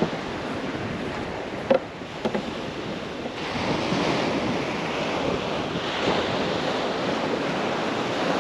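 Small waves washing onto a shingle beach, swelling and easing every couple of seconds, with wind buffeting the microphone. A couple of brief knocks come about two seconds in.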